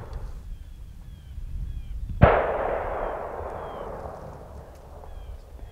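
A single distant gunshot about two seconds in, its report rolling away in a long echo that fades over the next few seconds.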